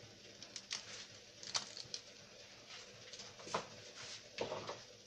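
A handful of light clicks and knocks as kitchen things are handled, among them a china plate being set down on a container.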